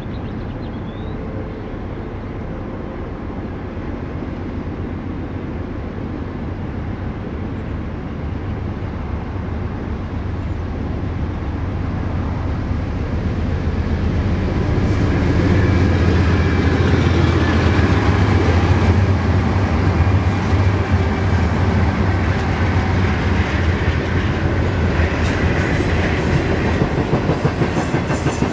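Three Norfolk Southern GE Dash 9-44CW diesel locomotives hauling an intermodal train approach and pass, their low diesel rumble building steadily and peaking in the middle. Near the end comes the rhythmic clickety-clack of flatcar wheels over the rail joints as the cars roll by.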